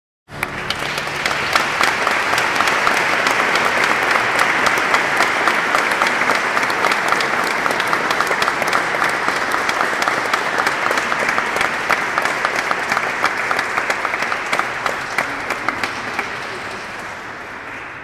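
An audience applauding in a high-vaulted church: dense clapping that starts suddenly, holds steady, and begins to die away over the last couple of seconds.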